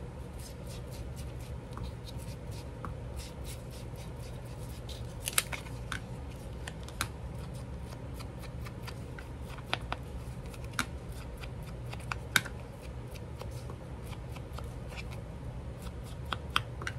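Scrap paper being handled and distressed by hand: scattered small clicks, taps and scratchy rustles at irregular intervals, over a steady low hum.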